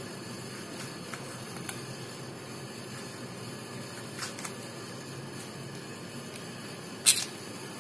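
Faint taps and scrapes of a knife cutting chapatis on a glass cutting board over a steady background hum, with one sharp click near the end.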